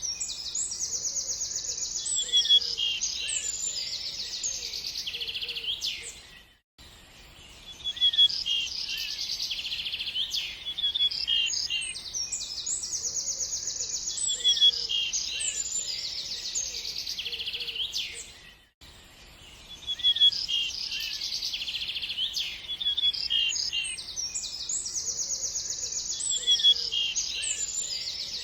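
Birds chirping and trilling in fast, high calls, a short recording that repeats about every twelve seconds, with a brief drop to silence each time it restarts.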